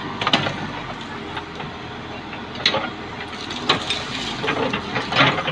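Case 580L backhoe loader's diesel engine running steadily while it digs. Several sharp knocks and clanks from the digging come spaced through it, the loudest about halfway through and near the end.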